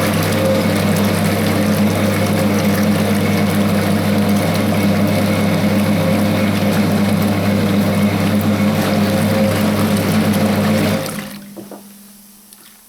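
Electric motor of a 1960s Hoover 0321 wringer washing machine running with a steady hum while it churns the wash water and dissolves washing powder. The sound stops about eleven seconds in, dying away over about a second.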